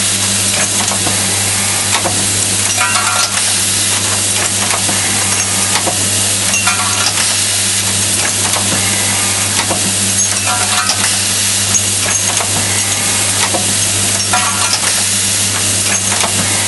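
Semi-automatic hinge assembly machine running: a steady rattling hiss over a low electrical hum, with a short burst of metallic clatter about every four seconds as the machine goes through its cycle.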